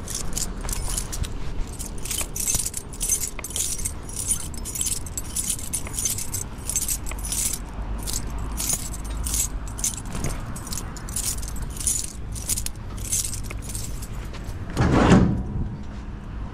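A bunch of keys jingling in a steady rhythm over a low vehicle rumble. About 15 s in comes a single louder thud.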